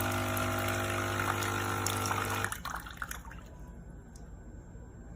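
Nescafé Dolce Gusto Genio S capsule coffee machine brewing: its pump hums steadily as liquid streams out, then stops about halfway through, leaving a few drips.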